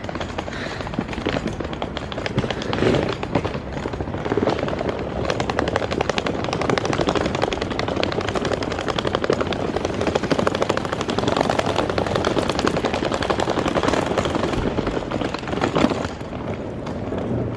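Wheels of a rolling suitcase rattling rapidly and continuously over a hard floor, easing off near the end.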